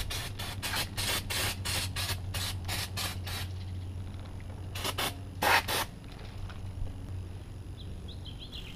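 Aerosol brake cleaner hissing out in a rapid series of short spray bursts for about three and a half seconds, then two more bursts about five seconds in, as the brake caliper mounting bracket is cleaned of brake residue.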